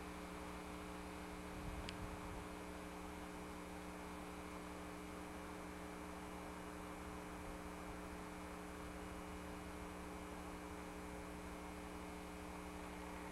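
Steady electrical mains hum with several steady tones over a constant hiss, with a single faint click about two seconds in.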